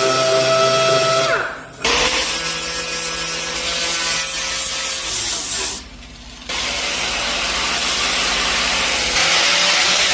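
A power tool's motor running steadily, spinning up about two seconds in, cutting out briefly near six seconds and starting again.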